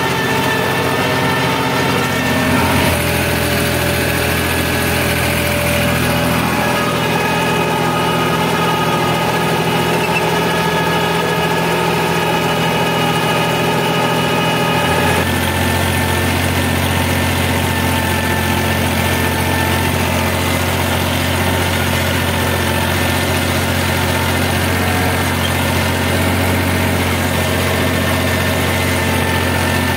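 New Holland 3600-2 tractor's diesel engine running steadily while driving a rotavator through the soil. Its note shifts about three seconds in, again around seven seconds, and once more around fifteen seconds.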